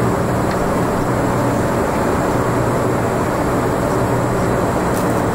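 Steady in-flight cabin noise of a jet aircraft at cruise: the even drone of the engines and rushing air, with a low steady hum underneath.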